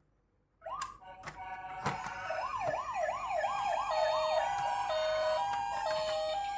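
Toy ambulance sirens switching on about half a second in, after a few sharp clicks: several electronic sirens sounding at once, one a fast up-and-down wail, others alternating between two tones.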